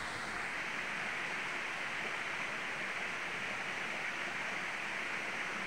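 Steady night-time outdoor ambience in dense vegetation: an even, unbroken hiss, strongest in a band around two kilohertz, with no distinct calls or knocks.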